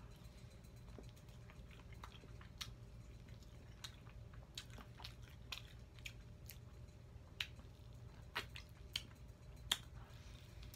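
Close-miked chewing of fried buffalo chicken wings: irregular sharp clicks and mouth sounds of biting and chewing, over a faint steady low hum.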